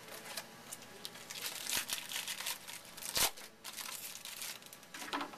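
Trading cards being handled and sorted by hand: irregular rustling and crinkling with a few sharp snaps, the loudest about three seconds in, and another short rustle near the end.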